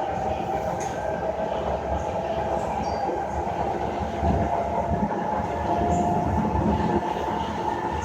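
SMRT C151 metro train running between stations, heard from inside the carriage: a steady rumble of wheels on the rail with a constant whine over it.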